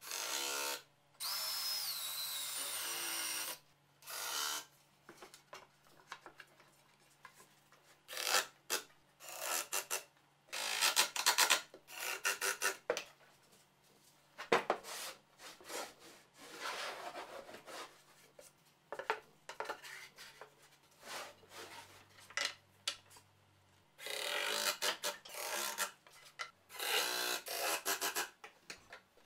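Milwaukee cordless power drill running in bursts of one to three seconds, driving screws into plywood, with short bouts of scraping and rubbing on wood between them.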